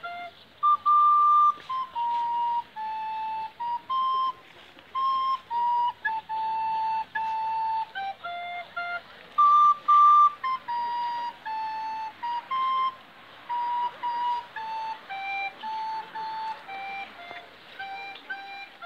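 A recorder playing a slow tune, one note at a time, in short phrases with brief pauses between them; the highest notes, about a second in and again near the middle, are the loudest.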